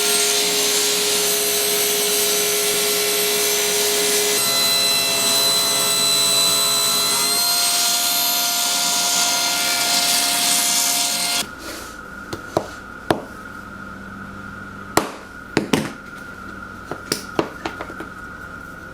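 Table saw running and cutting a purpleheart blank for about eleven seconds, then cutting off suddenly. After that a faint steady hum remains, with several sharp knocks.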